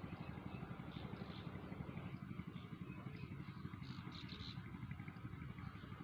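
Drilling machine running steadily, a low mechanical rumble with a fast, even pulsing.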